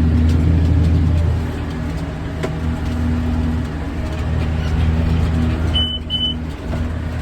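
Tractor engine running steadily while pulling a hay baler, a low even drone. About six seconds in come two short, high electronic beeps.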